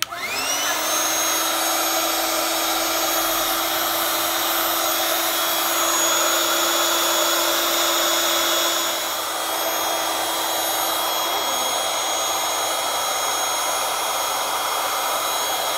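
Small electric air pump blowing up a Wubble Bubble ball: the motor starts with a rising whine as it spins up, then runs steadily with rushing air, a little quieter after about nine seconds.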